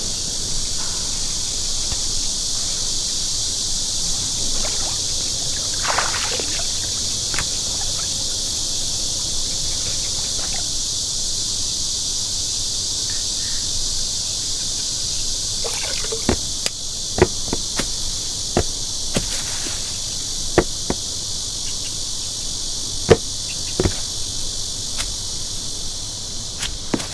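A steady, high chorus of insects runs throughout. Scattered sharp clicks and taps come in over it, mostly in the second half.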